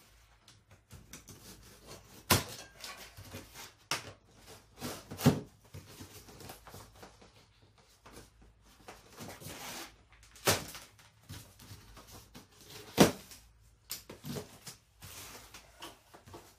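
White plastic packing straps around a cardboard box being cut with a utility knife: several sharp snaps as the straps give way, four of them loud, with rustling and scraping of strap and cardboard in between.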